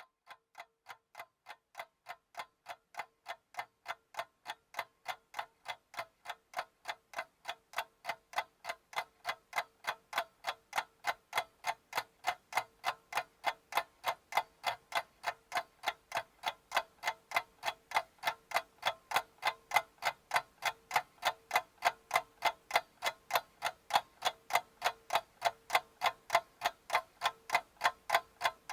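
Steady clock-like ticking, a few ticks a second, fading in from silence and growing louder over the first several seconds. A faint steady tone runs underneath.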